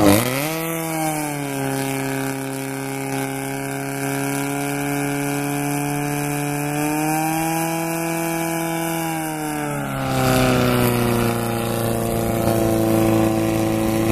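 Portable fire pump's engine running at high revs while it pumps water to the hose lines. It climbs in pitch in the first second, holds a steady high speed, then drops to a different steady pitch about ten seconds in.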